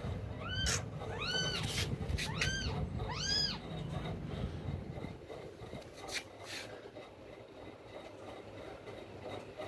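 Newborn kittens mewing: about four high, arching cries in the first few seconds, each rising and falling in pitch. After that it turns quieter, with a couple of faint clicks.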